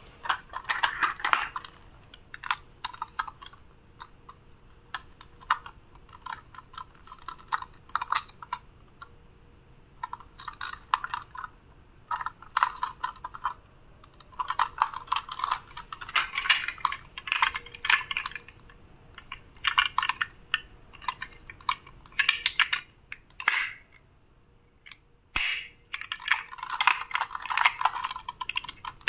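Small plastic toy vehicles clicking and clattering as they are handled and knocked against each other and a plastic basket. The rapid clicks come in irregular clusters with short pauses between.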